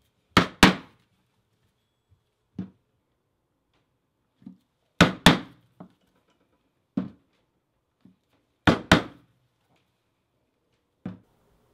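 Mallet striking a steel leatherworking tool held upright on the leather: three pairs of sharp, loud knocks, the two blows of each pair about a quarter second apart, with lighter single taps between the pairs.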